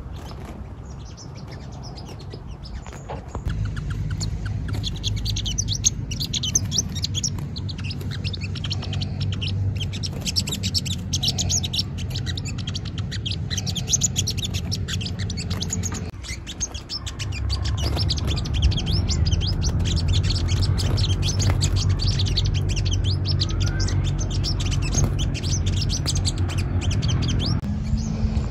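Olive-backed sunbirds chirping: a dense, rapid run of thin, high chirps starting a few seconds in, over a steady low hum.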